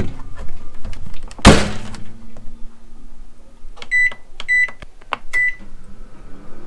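Toshiba microwave oven: its door shuts with a loud thud about a second and a half in, leaving a steady low hum. Then come three short high beeps as buttons on its control panel are pressed to start heating.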